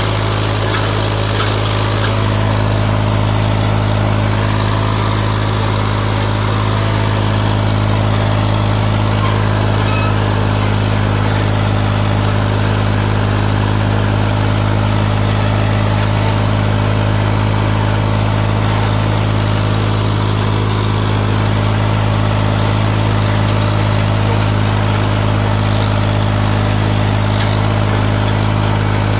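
Farm tractor engine running steadily, one even low note, while the tractor pulls a disc harrow through the soil, heard from the driver's seat close to the upright exhaust stack.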